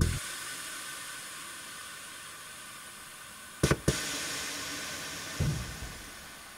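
Air-ride suspension on a bagged Mazda B2600i mini truck dumping air: a steady hiss of air venting that slowly fades. Two sharp clicks come about three and a half seconds in, and a thump about five and a half seconds in as the truck drops onto its stops.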